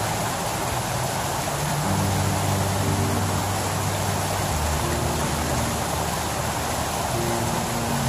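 Water falling down small rock cascades into a garden pond, a steady rushing splash. Under it, low held music notes change every couple of seconds.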